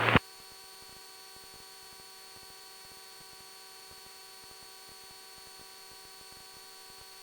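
Faint steady electrical hum and buzz with several thin steady tones, as on a cockpit intercom or radio audio feed with no one transmitting. A short burst of radio audio cuts off right at the start.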